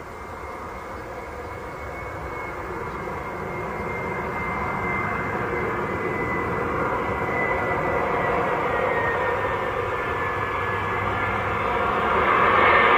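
Airbus A320 on short final, its twin jet engines at approach power: a steady rushing roar with a high whine that grows louder as the airliner comes closer. The whine drops slightly in pitch partway through, and the sound is loudest near the end.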